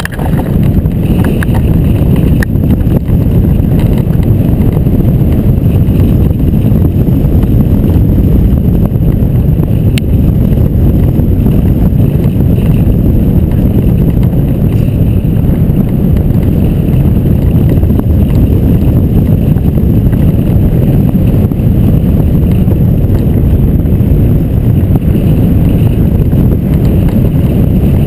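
Loud, steady low rush of airflow buffeting the hang glider's keel-mounted camera microphone in flight. It comes up sharply right at the start as the glider leaves the launch ramp.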